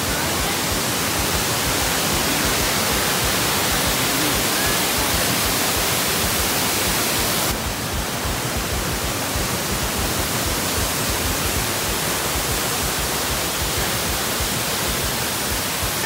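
Steady rush of a waterfall and white water cascading over boulders, loud, with a slight shift in tone about halfway through.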